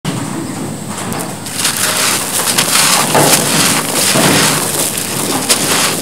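Soft, gritty cement blocks crushed and crumbled by hand: a dense run of crunching and crackling as the grit breaks and falls, getting busier about a second and a half in.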